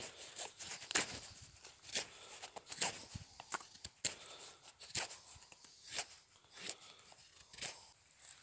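Knife shaving a wooden stick to a point: sharp scraping strokes of the blade, roughly one a second, with smaller scrapes between.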